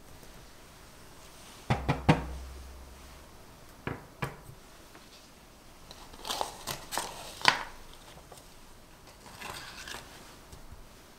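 A stainless steel cake ring knocks on a baking tray a few times, three sharp clacks about two seconds in and two more about four seconds in. Then a Teflon sheet rustles and crinkles as it is curled into the ring to line it.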